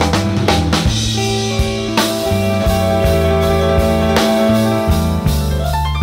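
Background rock music with a drum kit, bass and guitar, an instrumental stretch without singing.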